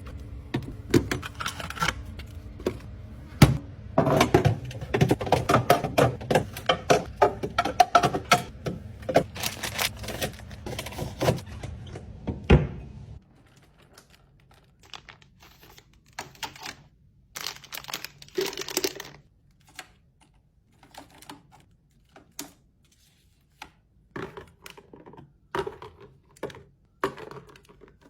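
Skincare bottles and jars being set down and arranged in a mini fridge: a long run of sharp taps and clacks of containers, dense at first and sparser later, with a low hum under the first half that stops suddenly about halfway.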